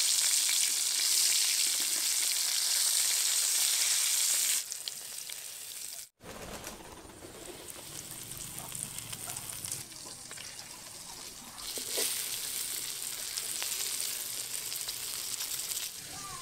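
Coated fish frying in hot oil in a steel karahi: loud sizzling for the first four seconds or so, then a short break about six seconds in and quieter sizzling that grows louder again about twelve seconds in.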